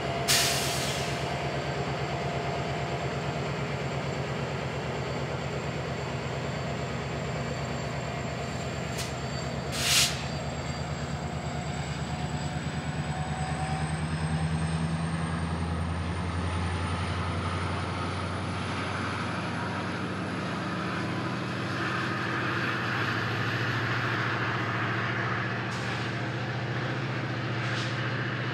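Diesel locomotive pushing a commuter train away from a station stop, its engine running steadily and loading up about halfway through as the train gathers speed. Two short, loud bursts of air hiss, one right at the start and one about ten seconds in.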